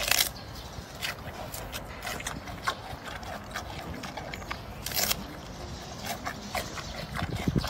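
Giant panda biting and chewing a bamboo shoot: irregular crisp crunches, the loudest right at the start and again about five seconds in.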